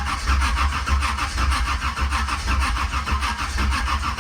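Car's starter motor cranking the engine over in a steady rhythm without it catching. The battery is too weak even with a jump box connected: not enough juice to start.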